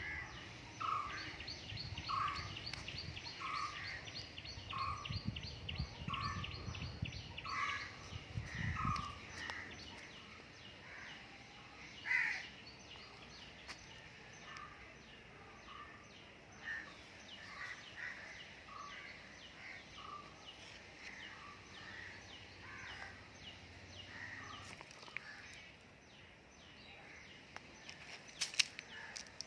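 Bird calling outdoors, repeating a short call about one and a half times a second: loud for the first nine seconds, then fainter. A single louder call comes about twelve seconds in. A low rumble sits under the first part, and there are a few sharp clicks near the end.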